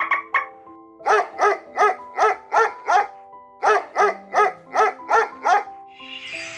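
A dog barking in two quick runs of about six barks each, roughly three a second, over background music.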